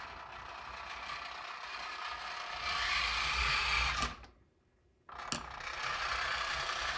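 Huina 1582 RC dump truck's electric drive motor and gearbox whirring at slow proportional speed, getting louder about three seconds in. It cuts out for about a second, then a click and the whirring starts again.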